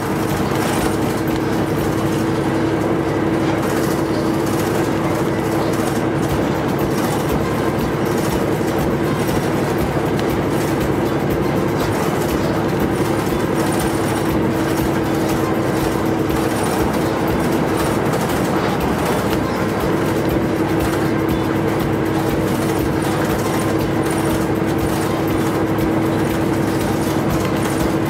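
Inside a moving diesel route bus: steady engine and road noise with a constant whine running over it.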